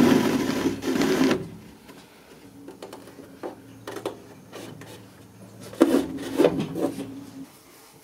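Upholstery work on a chair seat's steel coil springs and jute webbing. It opens with a continuous rasping rub of twine being pulled through the webbing, then light scattered clicks of the springs being handled. A louder cluster of rasping rubs and knocks comes near the end.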